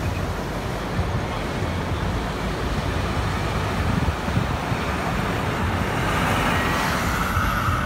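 A car driving along a city street, with a steady rumble of road and tyre noise. A higher whine swells near the end.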